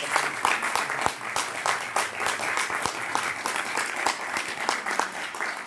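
Audience applauding, many hands clapping together, slowly dying down toward the end.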